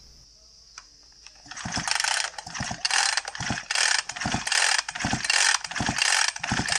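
Husqvarna 450 chainsaw's recoil starter rope being pulled again and again, starting about a second and a half in at a bit more than one pull a second. Each pull is a rattling whirr of the starter and the engine being cranked. The saw is flooded, and the cranking pumps fuel out of the engine.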